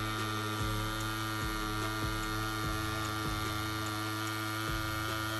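Rhein EM145 wireless pen-style tattoo machine running steadily with an even electric hum from its motor, its needle lining into silicone practice skin.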